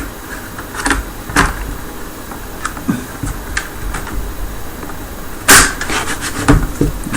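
Scattered plastic clicks and knocks as the Corsair K70's detachable wrist rest is handled and snapped onto the front of the keyboard. The loudest knock comes about five and a half seconds in, followed by a quick cluster of smaller clicks.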